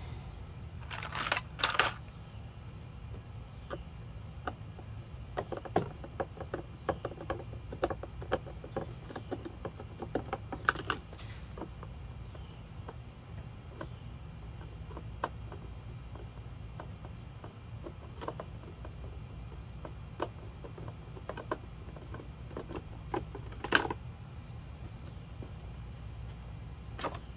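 Scattered clicks and knocks of a screwdriver and hard plastic as a Power Wheels ride-on car's plastic body is worked apart, louder about a second in and near the end, over a steady high insect drone.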